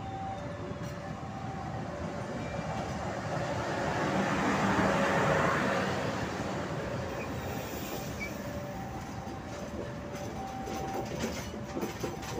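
Passenger train coaches rolling past at close range: steady wheel-and-rail rumble that swells about halfway through, with faint wheel squeal coming and going and sharp clacks over the rail joints near the end.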